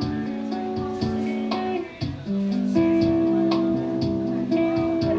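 Guitar played solo: plucked and strummed chords ringing out, with a short break about two seconds in before the next chord comes in louder.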